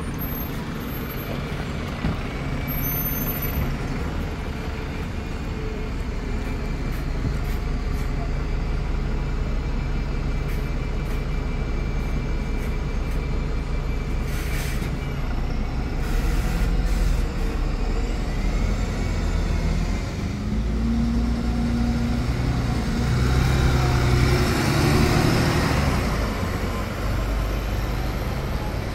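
Double-decker bus engines running in slow street traffic, a steady low hum. Past the middle the engine note shifts and grows louder, with a stretch of hiss, as the buses move off.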